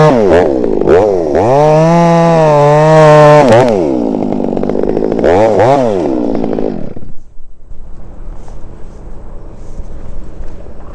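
Two-stroke chainsaw running at high revs and cutting ash wood, its pitch sagging and picking up again several times. It cuts out suddenly about seven seconds in.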